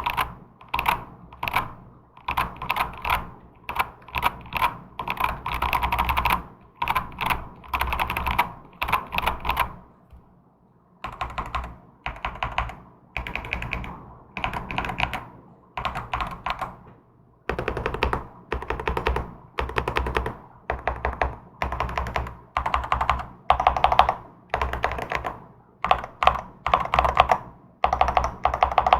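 Typing on a custom hot-swap mechanical keyboard, the zenzo Black Coral, fitted with Akko Cream Blue switches: rapid runs of keystrokes in short bursts, with brief gaps between them and two pauses of about a second, one about ten seconds in and one about seventeen seconds in.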